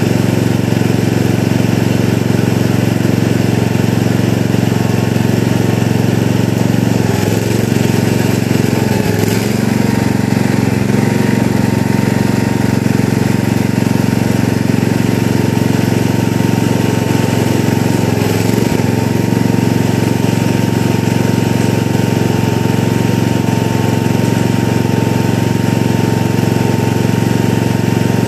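Gravely 8163B garden tractor's engine running steadily while it pushes mulch with its front plow blade. Its pitch dips briefly a few times.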